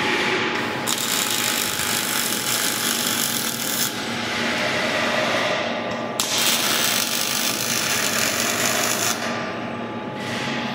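Robotic MIG welding arc crackling and hissing in two welds of about three seconds each, one starting about a second in and the next about six seconds in, with a lower steady machine hum between them.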